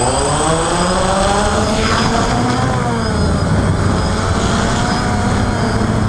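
DJI Phantom quadcopter's brushless motors and propellers whining as it lifts off, the pitch rising, dipping and rising again with the throttle and settling about halfway through, over wind noise.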